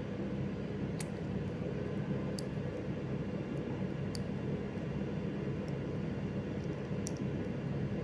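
Steady low background hum, with a few faint light ticks as the twisted Cat6 wire pairs are straightened by hand.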